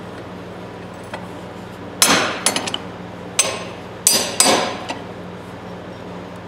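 Ball-peen hammer striking old steel Eagle Claw pliers at the pivot pin on a bench vise: four sharp metallic blows with a few lighter taps between, each ringing briefly. The pin is stuck and not driving through.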